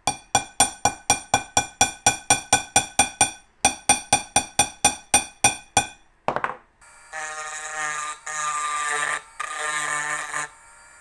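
A small dent hammer tapping a steel punch set in a trombone brace on a steel mandrel, about four ringing metal taps a second in two runs, to smooth the brace back down. A few seconds later a handheld rotary tool whirs in three short bursts as it grinds the small brace part.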